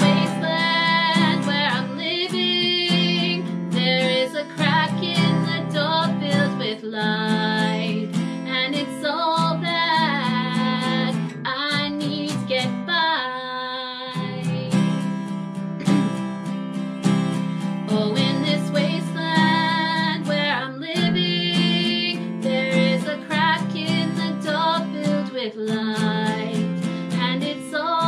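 A woman singing a slow hymn-like song, accompanied by a strummed acoustic guitar.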